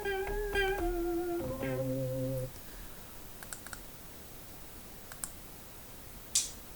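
Synthesizer "house lead" preset played from a MIDI keyboard: a short phrase of several lead notes with slight pitch bends, ending on a lower held note that stops about two and a half seconds in. A few faint clicks follow.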